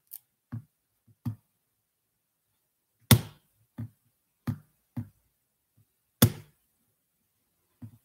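Irregular knocks and taps of a hand on a desk or computer close to the microphone, about nine in all, with two sharper, louder ones about three and six seconds in.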